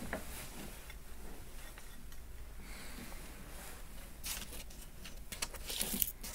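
Faint handling noise from a small pen-style USB soldering iron being picked up and held: light clicks and rattles against quiet room tone, with a cluster of sharper clicks about four seconds in and again near the end.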